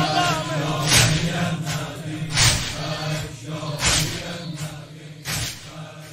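A gathering of mourners at the close of a Shia noha, faint chanting voices with a beat of sharp rhythmic slaps, the whole fading out.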